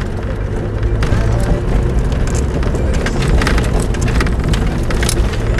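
Vehicle driving along a rough dirt-and-gravel track: a steady low rumble of engine and tyres, with stones and grit crackling and ticking under the wheels.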